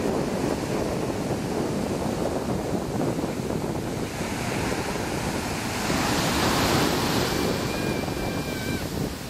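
Ocean surf breaking and washing up a sandy beach, medium-high waves in a continuous rush, with one wave crash swelling louder about six seconds in.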